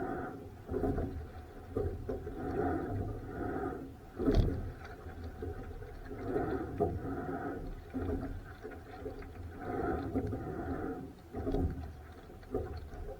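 Rowing boat on rough water: irregular splashing every second or two, with one sharp knock about four seconds in.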